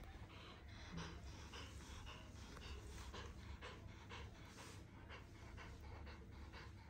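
Maine Coon cat making quick, faint, breathy huffs through its open mouth, about three a second.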